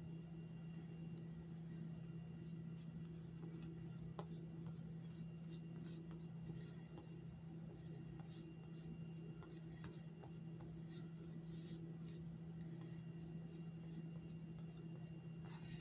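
Silicone spatula spreading a gritty breadcrumb, brown sugar and butter filling over rolled bread dough: a run of short, irregular soft scraping strokes over a steady low hum.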